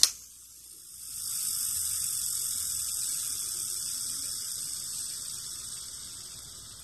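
Quantum Escalade HD baitcasting reel spool spinning in free spool on newly installed Boca bearings that are not yet broken in: a click, then a steady high whir that builds about a second in and slowly dies away as the spool runs down.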